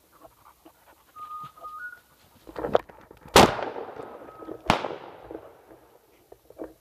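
Shotgun fired twice, about a second and a quarter apart, each shot echoing off through the woods.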